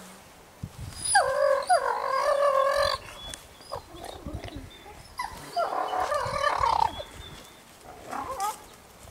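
Pack of grey wolves whining and yelping as they crowd together in a social greeting. There are two long, high calls of about a second and a half each, separated by softer vocal sounds, then a short call near the end.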